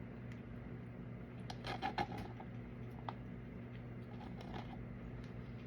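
Steady low hum under a few light clicks and taps, with a short cluster of them about two seconds in and a single click about a second later.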